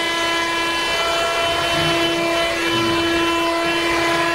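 Excavator's engine running with a steady high whine over a rough low rumble while it digs and loads soil.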